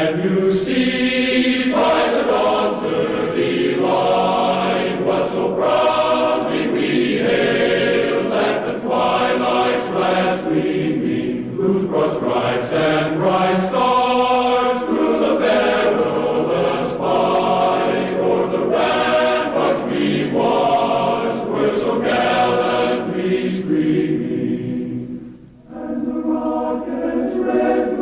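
Choir singing, with long held notes that change pitch every second or two and a short break near the end before the voices come back in.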